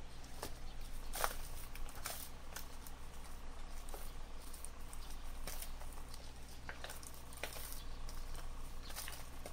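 Fingers working apart a packed, damp hibiscus root ball: soil crumbling, fine roots tearing and small grains pattering onto newspaper, heard as soft scattered crackles and ticks.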